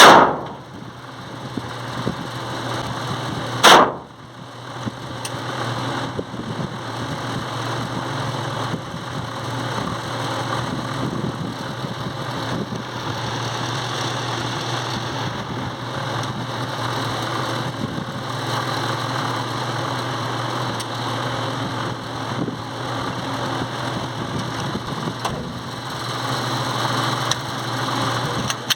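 Two pistol shots from a Glock .380, one at the very start and another a little under four seconds later, followed by a long pause in the firing with a steady mechanical hum.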